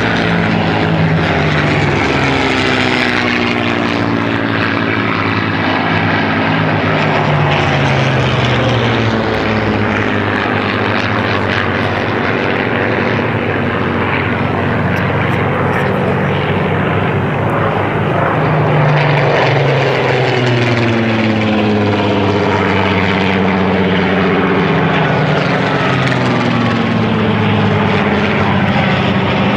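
A formation of many Spitfires flying past, their piston engines running together at a steady loud level. Several overlapping engine notes rise and fall in pitch as the aircraft pass.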